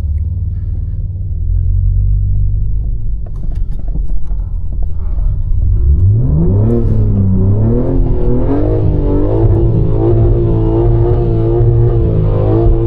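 BMW G80 M3 Competition's twin-turbo straight-six, heard as a steady low rumble at first. About six seconds in its pitch climbs sharply, then it holds high revs with the pitch wavering up and down, typical of throttle and wheelspin on snow.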